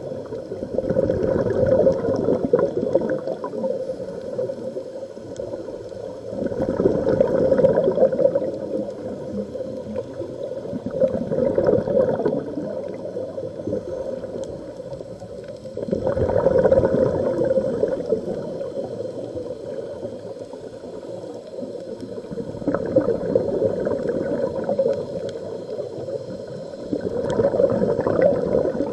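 Scuba regulator exhaust bubbles gurgling underwater, swelling in bursts of about two seconds every five seconds or so with each exhaled breath.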